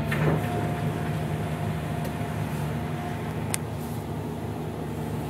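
Cat 336 excavator's diesel engine running steadily, heard from the cab, as the hydraulics swing the bucket. A thin tone fades out about three seconds in, and a single sharp click comes soon after.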